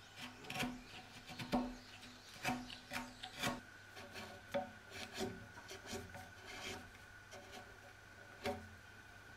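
Hand-pushed Japanese chisel paring Japanese pine (matsu), shaving wood in short scraping strokes, one or two a second, with a pause before a last stroke near the end.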